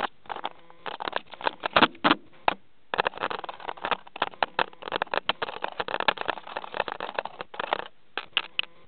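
A budgerigar's beak and feet pecking, nibbling and scraping at a camera right against its microphone: rapid, irregular clicks and scratchy crackles in clusters, with short pauses about three seconds in and near the end.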